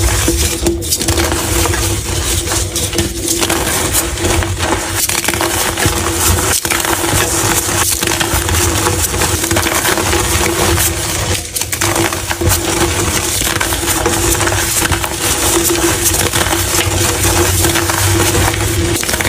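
Blocks of gym chalk being crushed, a dense, continuous crunching and crackling of crumbling chalk that dips briefly about two thirds of the way through.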